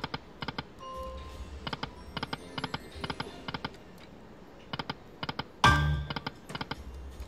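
Lightning Link 'Eyes of Fortune' slot machine spinning its reels: repeated quick clusters of sharp clicking reel-stop sounds. About five and a half seconds in, a much louder chime with a low thud comes in as green orb symbols land on the reels.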